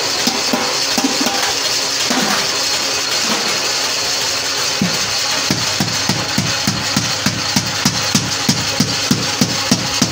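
Hand hammer striking the edge of a steel bucket, with irregular blows at first, then a fast even run of about four blows a second from about halfway in, over a steady hiss.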